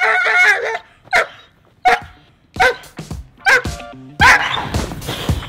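Young German Shepherd, about seven months old, barking in short single barks, about six of them a second or so apart, worked up by the leather bite strap during grip training.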